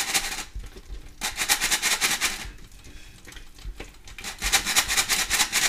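Hand-operated metal flour sifter being worked over a pot of dough, a fast rattling rasp of clicks in bursts of about a second, with short pauses between.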